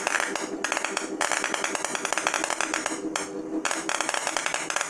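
Spark-erosion crackle from a homemade CNC EDM, a copper electrode sparking against an aluminium workpiece under water. It is a dense, rapid crackle that drops out briefly just after half a second and again about three seconds in.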